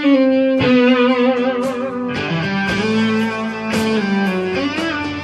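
Lead electric guitar playing a solo line of long sustained notes with vibrato and small bends, a new note every second or so.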